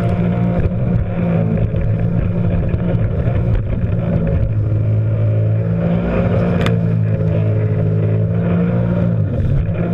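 Jet ski engine running at speed, a steady drone whose pitch shifts a few times as the throttle changes, with water spray hissing around it. A sharp hit sounds about two-thirds of the way through.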